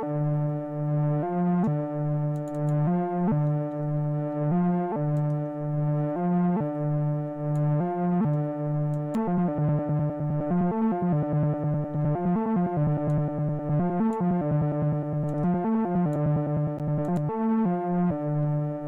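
Synthesizer keys part playing back from a Maschine beat: held chords that change about every second and a half, then from about halfway a quicker line of shorter notes over them.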